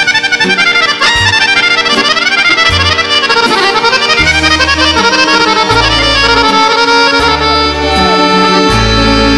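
Two chromatic button accordions playing a fast instrumental duet, quick runs of notes sweeping up and down over low bass notes.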